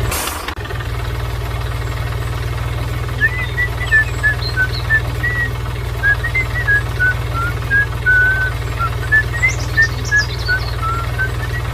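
A steady low motor hum with a run of short, high chirping whistles starting about three seconds in, two or three a second at shifting pitch.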